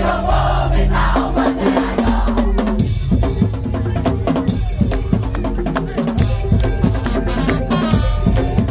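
Madurese tong-tong (daul) percussion ensemble playing: drums and struck percussion over held low notes, the beat turning dense and fast about three seconds in.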